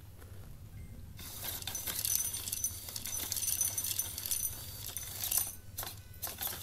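Dry cat kibble clinking into a ceramic bowl as a 3D-printed worm-drive feeder dispenses it, starting about a second in and running about four seconds before thinning to a few last pieces.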